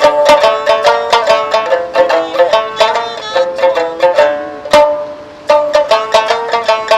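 Sanshin, the Okinawan three-stringed lute, playing a quick plucked melody of Okinawan folk music with no singing. The notes thin out and soften around two-thirds of the way in, then the fast plucking starts again.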